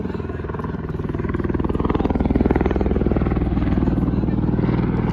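Helicopter with fast, steady rotor chop and engine noise, growing louder as it comes closer to the helipad.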